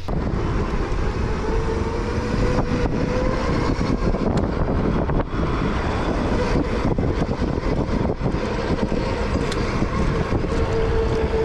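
Wind rushing over the microphone while riding an e-bike along a street, with a faint steady whine underneath.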